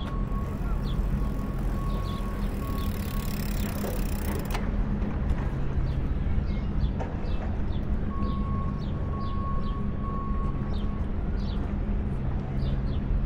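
A steady low engine hum, with short high chirps like small birds over it and one sharp click about four and a half seconds in.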